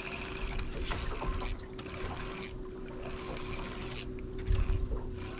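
Spinning reel being cranked through a slow retrieve: a steady mechanical whir with a humming tone from its gears and small clicks. Water and wind rumble lie underneath, with a louder low buffet about four and a half seconds in.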